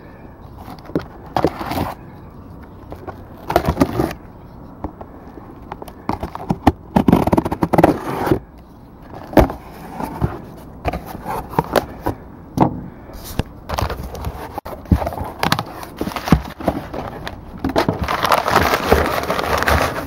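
A taped cardboard shipping box being opened by hand: a utility knife cutting the packing tape, the cardboard flaps scraping and being pulled back, and packing paper crinkling as it is pulled out, in irregular bursts with a longer stretch of rustling near the end.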